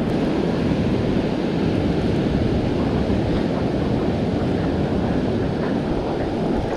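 Ocean surf washing onto the beach, a steady rushing noise, with wind buffeting the microphone.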